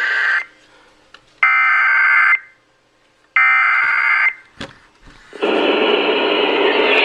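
Emergency Alert System header: harsh, screechy digital data bursts about a second long, repeated with one-second gaps, followed from about five seconds in by a continuous loud alert tone, the attention signal that comes before a warning message.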